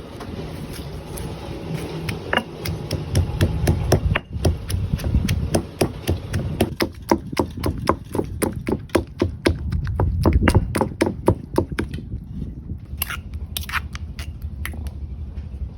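A rapid, even run of sharp knocks, about five a second, lasting several seconds, then a few louder separate knocks near the end, over a steady low rumble.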